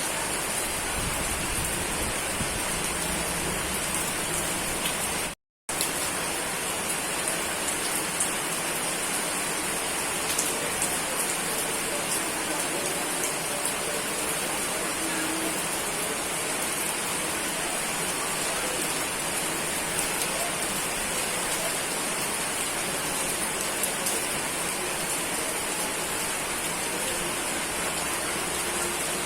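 Steady rain falling, a dense even hiss with faint scattered drop ticks. About five and a half seconds in, the sound cuts out completely for a fraction of a second, then resumes.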